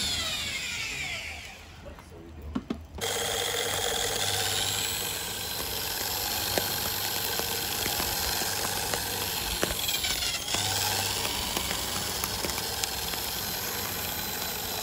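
Corded electric drill spinning a plastic fan blade as a barbecue blower. It winds down over the first two seconds, starts again after a short pause and runs steadily, with a brief dip and spin-up about ten seconds in. Scattered faint crackles come from the burning charcoal and wood.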